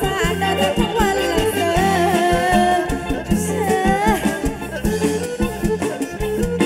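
Live kantruem band music: a singer's sliding, ornamented melody over a drum kit and electric band with a steady beat.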